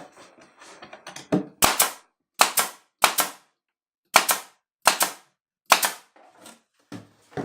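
Pneumatic brad nailer firing nails to assemble a wooden box: a string of about eight sharp pops, irregularly spaced, each under a second from the next.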